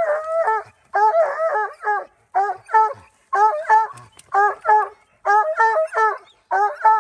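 Coonhounds barking treed at the base of a tree, the bay that tells the hunters a raccoon is up it. The barks come in quick bursts of three or four, about one burst a second.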